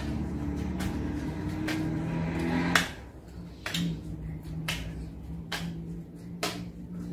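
Baralho cigano cards shuffled by hand, the deck giving a sharp snap about once a second.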